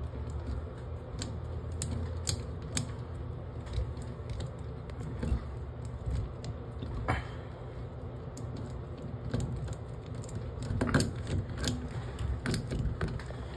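Screwdriver tightening the screw in a chrome bathtub faucet handle: irregular small metallic clicks and scrapes of the bit in the screw head, with a few louder clicks near the end.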